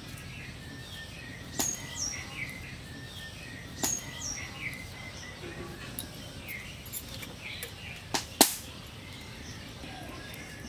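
Small birds chirping in the background: short, high, falling chirps scattered through. A few sharp clicks cut in, the loudest two close together about eight seconds in.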